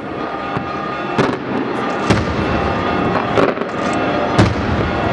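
Fireworks going off: a run of sharp bangs at uneven intervals, about five in the span, over a continuous crackle of smaller reports.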